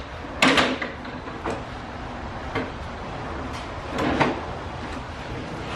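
Griot's Garage compact sit-on creeper set down on the floor with a loud double clatter about half a second in. A few lighter knocks and clicks follow, with another pair around four seconds in, as it takes his weight and shifts on its wheels.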